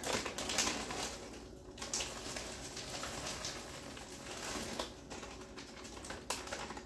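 Plastic bag of frozen peas crinkling and rustling as the peas are shaken out of it into a pot of soup, with scattered sharp crackles.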